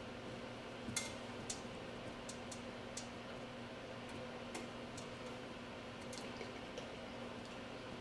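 Faint, irregular small clicks and ticks, about a dozen scattered through, over a steady low electrical hum.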